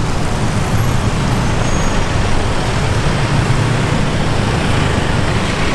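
Busy city road traffic: a steady engine rumble from cars and trucks passing close by.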